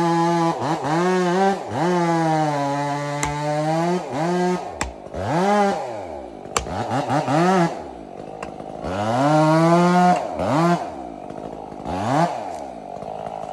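Stihl chainsaw revved up and down again and again, with its pitch climbing and falling, held at high revs for a second or two several times.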